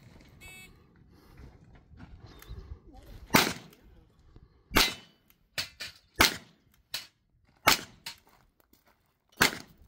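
A shot-timer beep, then about three seconds later five revolver shots, roughly one every second and a half, with fainter sharp cracks between some of them.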